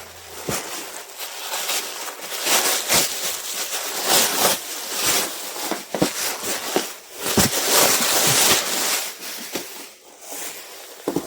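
Packing materials being handled, rustling and crinkling, with scattered light clicks and knocks. The rustling is loudest for a second or so about two-thirds of the way through.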